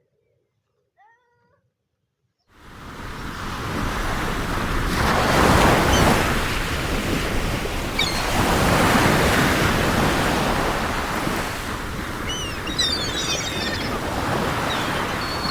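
Near silence, then waves washing onto a shore fade in after about two and a half seconds and swell in surges. A few high bird chirps come about twelve seconds in.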